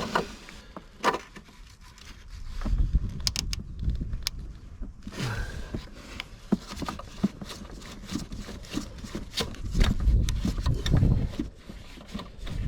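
Mole grips clicking and scraping on a rusted broken stud as it is turned back and forth, with scattered metal clicks and low handling thumps.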